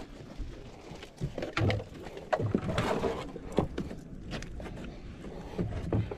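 Irregular knocks, bumps and rustling as people move about in a small boat pushed in against mangrove branches, with gear and bodies knocking on the hull.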